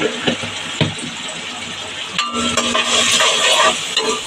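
Onion and spice masala frying in oil in a steel kadai, sizzling while a spatula stirs and scrapes it against the pan, with a few light knocks of the spatula. The sizzle grows louder for a second or so past the middle.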